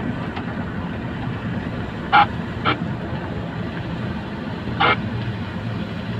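Steady road and engine noise inside a car driving on a wet road. Three short, sharp sounds cut through it, about two seconds in, just after that, and near five seconds in.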